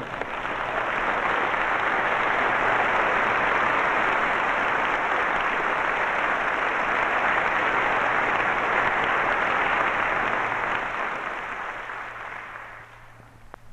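Audience applause, swelling over the first second or so, holding steady, then dying away near the end.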